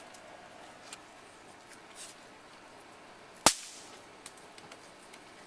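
A small firecracker popped in the hand: one sharp crack about three and a half seconds in, with a few faint clicks around it.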